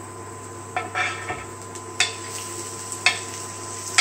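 Wooden spatula scraping sliced leeks and grated carrot off a plate into a frying pan of hot olive oil, the vegetables sizzling as they land, with a sharp knock of spatula on plate about once a second.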